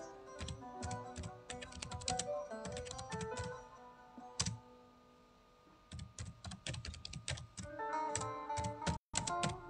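Keyboard typing in quick runs of key clicks, with a break of about a second in the middle, over soft plucked-string music.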